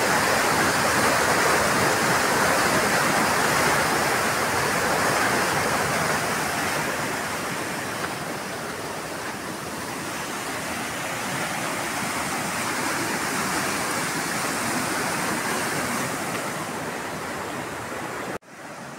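Steady rushing of fast-flowing floodwater, a loud even wash of water noise that cuts off abruptly near the end.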